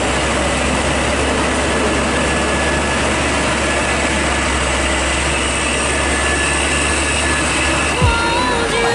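Hino fuel tanker truck's diesel engine running with a steady low rumble, under a constant hiss of heavy rain and water on the road. The sound shifts abruptly near the end.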